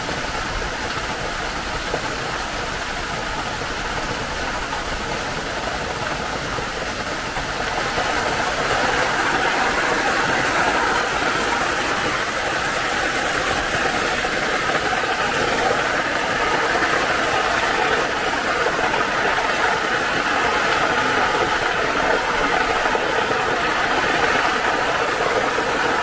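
Steady rush of running water from the pool and channel in a tiger enclosure, getting a little louder about eight seconds in.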